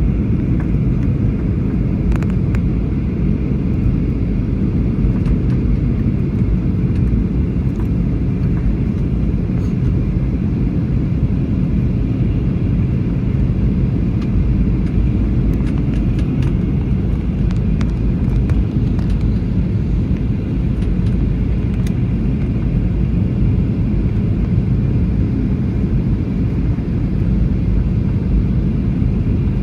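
Steady airliner cabin noise: the low, even drone of the jet engines and airflow heard from inside the passenger cabin, with a few faint ticks.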